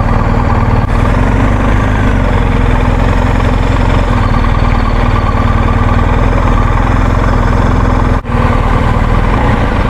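Motorcycle engine idling steadily in a slow-moving ferry queue, with a brief dip in sound about eight seconds in.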